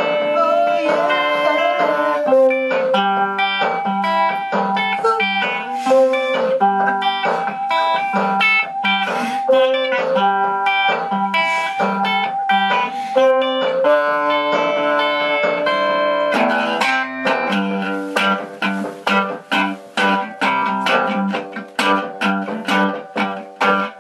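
A Casio keyboard and an electric guitar playing together: held melody notes over chords, which turn to short choppy chords in a quick rhythm for the last several seconds.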